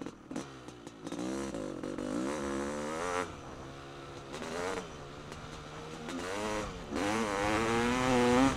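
Honda CR500 two-stroke single-cylinder dirt bike engine on the move, its pitch rising and falling with the throttle in several surges of acceleration, the longest and loudest near the end.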